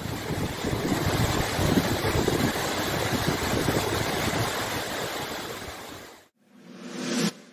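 Steady rush of water from a small waterfall cascading over rock steps into a stream, fading out and stopping about six seconds in. After a short gap, a brief separate sound with a low steady tone swells and cuts off just before the end.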